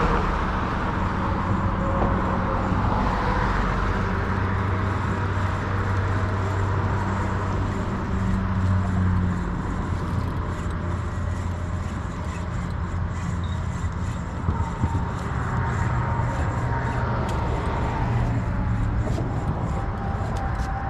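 Steady road-traffic noise from cars passing on a bridge, the engine hum swelling and fading as vehicles go by.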